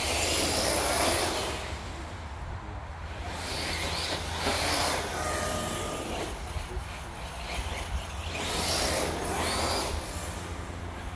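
Electric TLR Typhon RC buggy running on a 3S LiPo, driving past three times: each pass swells up with motor whine and tyre noise on leaf-covered ground, then fades, over a steady low rumble.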